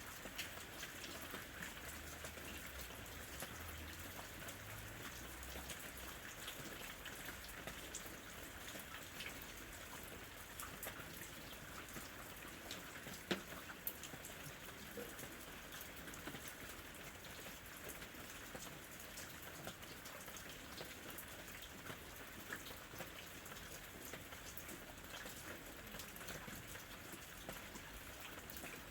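Steady, fairly soft rain falling, with many individual drops tapping on a surface and one louder drop about halfway through.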